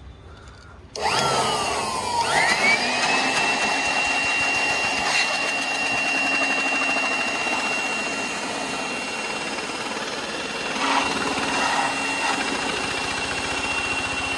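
Handheld electric blower switched on about a second in: its motor whine dips briefly, then climbs to a steady high pitch as it blows dust out of an air conditioner's outdoor unit and its condenser coil.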